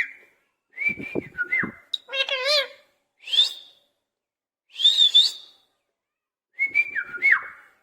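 Pet Indian ringneck parrot whistling: about five short separate calls, some sliding up or down in pitch and some warbling, with brief pauses between them.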